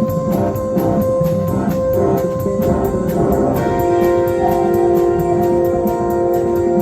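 Free-form jazz-rock band playing, led by an organ holding sustained chords that settle into one long held chord about three and a half seconds in.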